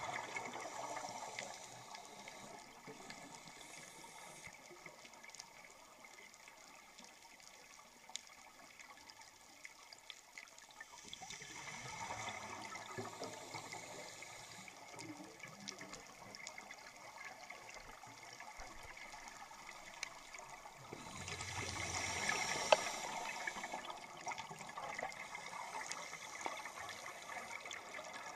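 Scuba regulator exhaust bubbles heard underwater, swelling in three bubbling surges about ten seconds apart as a diver breathes out, with scattered small clicks and one sharp click near the end.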